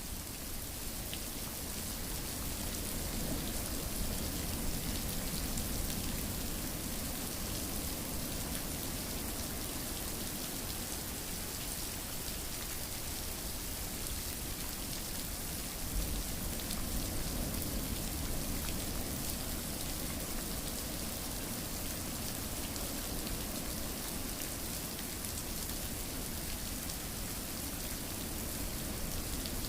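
Steady rain falling and pattering on a surface, an even hiss thick with fine droplet ticks, swelling slightly now and then.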